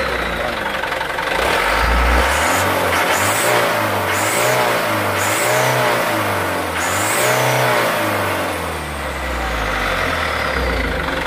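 Mitsubishi Canter's turbo-diesel truck engine running and revved about four times, its pitch rising and falling back with each blip. The engine has just been tuned for more power and is being revved to check that it now puts out exhaust smoke.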